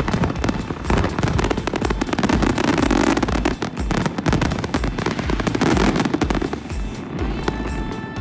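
Fireworks display going off in a rapid, dense volley of bangs and crackles that thins out near the end, with background music over it.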